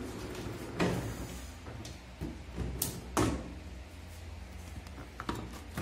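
Plastic lid of a Haier twin-tub washing machine's spin-dryer compartment being opened, with a few sharp plastic knocks and clunks as clothes are taken out of the spin tub; the loudest knocks come about a second in and about three seconds in.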